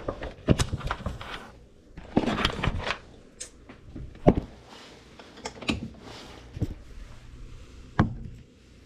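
Handling noises on a countertop: scattered sharp knocks and clicks, with a stretch of rustling about two seconds in, as a light housing and a soldering-iron stand are picked up and set down.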